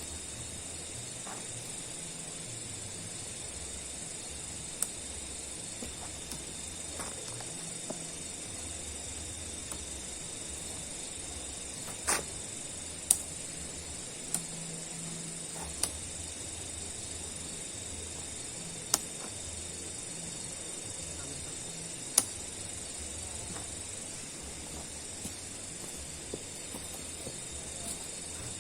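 Night insect chorus: a steady, high-pitched buzzing trill from many insects. A handful of sharp taps or clicks sound at scattered moments, the loudest about halfway through.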